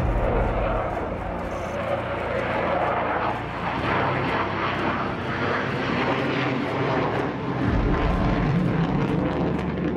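Loud, steady jet noise from a J-16 twin-engine fighter flying a display manoeuvre.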